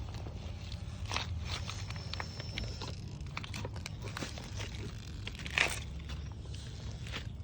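Scattered crunches and clicks of a 1/10-scale RC rock crawler's tyres and chassis working over rocks and dirt, over a steady low rumble, with one louder crack about five and a half seconds in.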